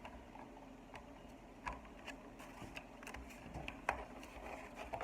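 Irregular small clicks and taps of the exercise bike's plastic display console being handled and opened up, a couple of sharper knocks among lighter ticks.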